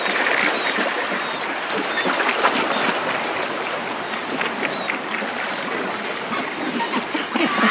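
Steady babble of a flowing stream, a water ambience full of small splashes and trickles.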